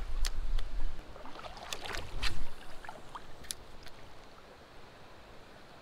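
River water flowing, with low wind buffeting on the microphone for the first two and a half seconds and a few sharp clicks from handling the rod and reel; after that only the faint steady rush of the water is left.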